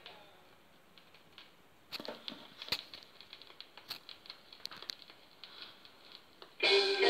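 Vinyl 45 rpm single on a portable turntable: the end of a rocksteady song dies away, then from about two seconds in come scattered sharp clicks and pops of the stylus riding the record's groove. Near the end the next side's rocksteady music, with guitar, starts suddenly.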